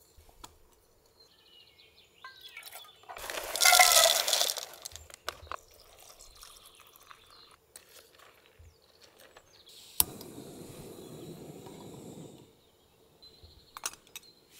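Water poured into a container for about a second and a half, its pitch rising as it fills. Small clicks and handling noises come and go, and a sharp click about ten seconds in is followed by two seconds of low rushing.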